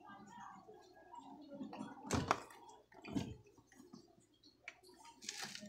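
Hands handling a dryer's run capacitor and its wire connectors. There is faint fiddling throughout, a sharp click about two seconds in, another knock about a second later, and a short scraping rustle near the end.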